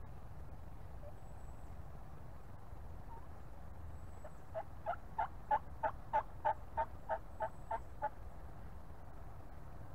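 Wild turkey yelping: a series of about a dozen evenly spaced notes, about three a second, that swell and then fade, starting about halfway through.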